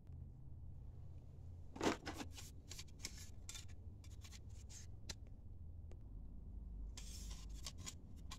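Handling noise from unpacking faucet parts: plastic wrap and the cardboard box rustling and crinkling, with parts rubbing and scraping, in short clusters over a low steady hum. A single sharper knock comes about two seconds in.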